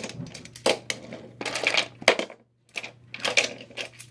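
Irregular clicking and clattering of small hard objects, with a steady low hum underneath.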